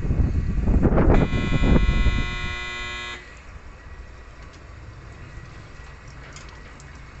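Maruzen MDDT6E door-type commercial dishwasher: the wash spray runs loudly inside the chamber, then a steady buzzer tone sounds for about two seconds as the washing stops, marking the end of the cycle. After that the machine is much quieter.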